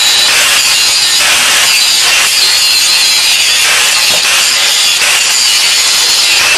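Angle grinder grinding steel, hogging a hairline crack out of a splitting-wedge blade before it is welded. A loud, steady grind with a high whine that wavers slightly.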